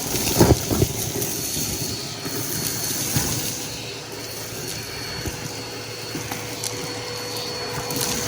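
Bissell PowerForce Helix upright vacuum cleaner running steadily with a constant motor hum. A few louder knocks and crackles come about half a second in.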